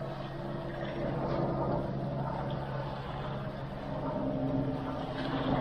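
A helicopter flying overhead: a steady low hum with a few held tones.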